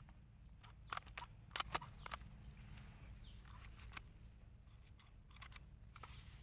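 A few short, sharp plastic clicks and knocks as a plastic hole punch is handled and opened, over a faint low steady hum.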